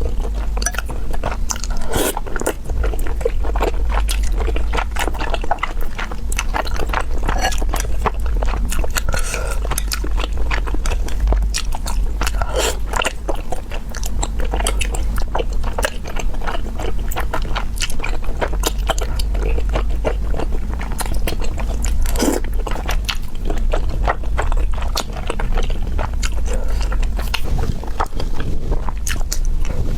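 Close-miked biting and chewing of an Orleans-style roast chicken leg, with many small irregular crunches and wet clicks.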